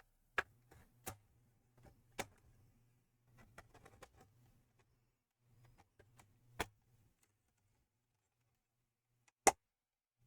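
Short, sharp plastic clicks and snaps as a plastic pry tool works along the seam of a Toshiba Satellite C70 laptop's case and the case clips let go: about six scattered clicks, the loudest near the end.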